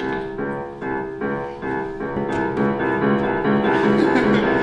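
Piano playing steady repeated chords, a little over two a second.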